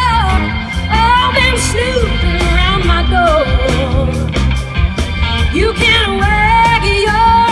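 Live rock band playing: a woman singing held, wavering notes over electric guitars, bass guitar and a drum kit.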